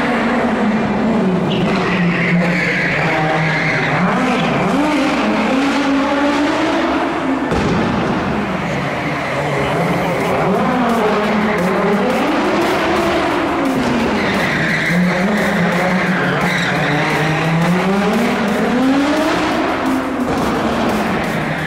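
Audi Sport quattro S1 Pikes Peak rally car's turbocharged five-cylinder engine revving up and down over and over as the car drifts, with tyres squealing twice, about two seconds in and again past the middle.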